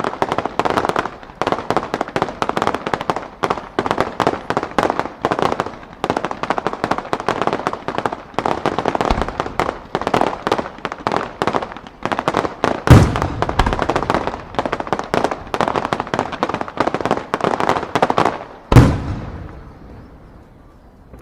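Aerial fireworks barrage: a dense, rapid string of shell bursts and crackles, with two much heavier booms, one about two-thirds of the way through and one near the end. After the last boom the sound rolls away and fades.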